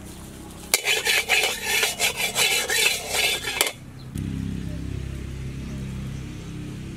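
A metal ladle scraping around the inside of a wok: about three seconds of quick, irregular rasping strokes, metal on metal. A low, steady noise follows near the end.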